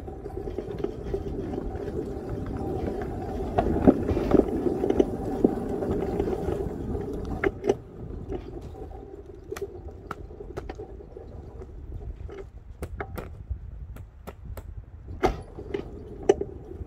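Ride-on scale train running on the track: a steady motor hum swells and then fades after about seven seconds, followed by scattered sharp clicks and knocks.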